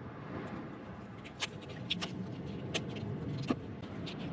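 A few short, sharp clicks from hand tools working on a truck camper's multi-pin electrical connector, over a steady low rumble.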